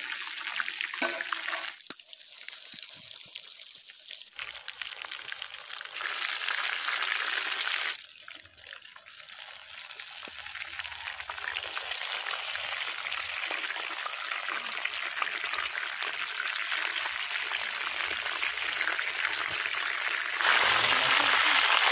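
Whole chicken deep-frying in hot oil in a karahi: a steady sizzling and crackling of bubbling oil. It drops quieter for a couple of seconds twice and is loudest near the end.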